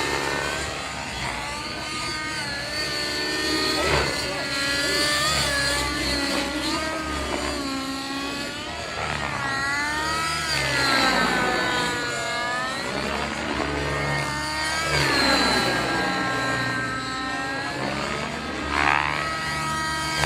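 Radio-controlled helicopter flying aerobatics, its rotor and motor whine rising and falling in pitch over and over.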